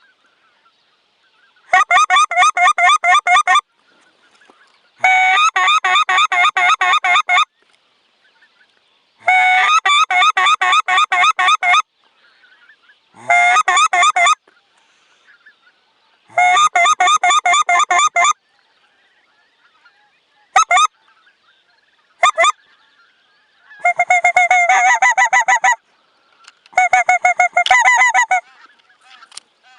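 Geese honking in a series of loud bursts of rapid, evenly repeated honks. Each burst lasts about two seconds, with pauses of one to two seconds between; two bursts in the middle are much shorter.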